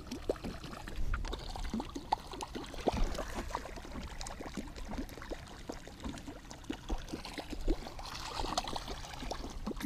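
Lake water sloshing and splashing beside a boat as a fishing rod tip is swept through it, with many small clicks and knocks.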